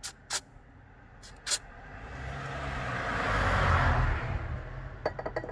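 A vehicle passing by: a rush of engine and tyre noise with a low rumble swells up, peaks about four seconds in and fades away. It follows a few sharp clicks near the start.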